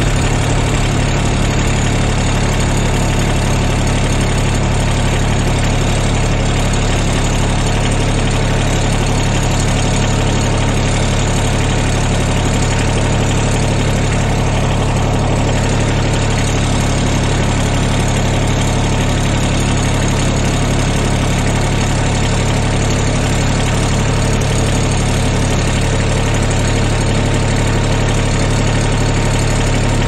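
An engine idling steadily: a constant low hum with no change in speed.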